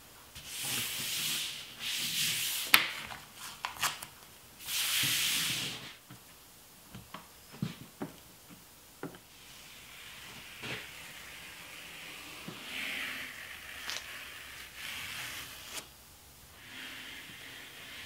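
Painter's tape being run out and rubbed down by hand on a sheet-aluminium roof: several loud rasping strips with sharp clicks in the first six seconds. Later, scattered taps, then softer rasping as the tape is peeled back off the roofing-cement strip.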